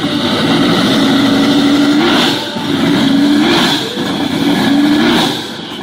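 A vehicle engine revved hard three times, the pitch climbing on each rev before it drops back.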